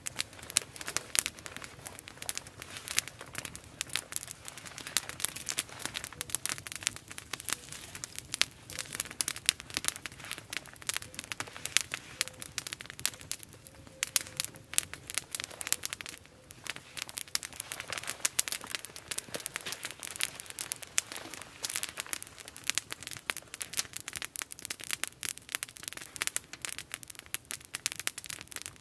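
Small wood campfire crackling, with dense, irregular pops and snaps that thin out briefly about halfway through.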